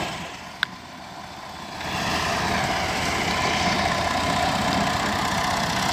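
Motor mower's engine idling steadily, quieter for the first couple of seconds, with a single sharp metallic click just over half a second in.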